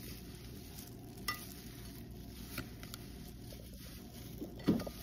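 Slotted spatula stirring sugar-coated mulberries in a glass bowl, macerating them to draw out their juice: a soft, faint rustling with a couple of light clicks. There is one brief louder pitched sound near the end.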